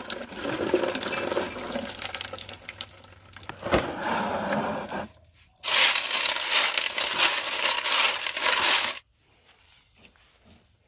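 Small freshwater snail shells clattering and grinding against each other and the aluminium bowl as they are scrubbed by hand with salt to clean them, a dense crackling rattle that grows louder about halfway through and stops abruptly about nine seconds in.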